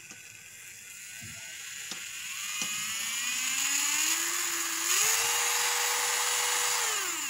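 Clavier electric nail drill's handpiece motor spinning up as the speed knob is turned up: a whine rising steadily in pitch, stepping up about five seconds in and holding at top speed for a couple of seconds, then winding down near the end. A few light clicks come before it spins up.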